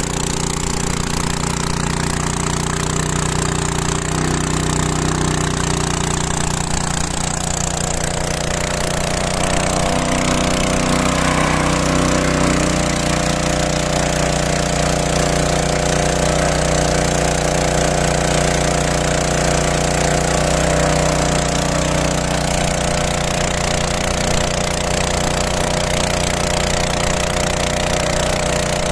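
Engine-driven motor pump running steadily, pumping water through an injector mixer whose suction hose draws in drilling-fluid polymer from a bucket. The running note shifts and grows a little louder about nine seconds in.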